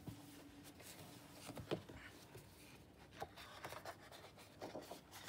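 Faint rustling and a few soft taps of sheets of scrapbook paper being turned over and smoothed flat by hand.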